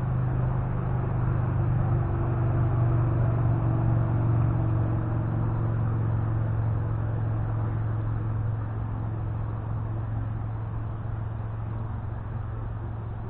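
A distant engine's steady low drone, swelling over the first few seconds and then slowly fading as it passes by.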